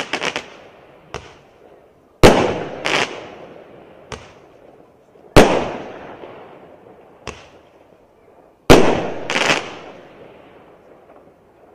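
A 0.8-inch, 15-shot Roman candle firing: three sharp launch bangs about three seconds apart, each followed within a second by a smaller bang as the shot bursts in the air, then a faint pop. Near the start, the smaller bangs of an earlier shot are heard.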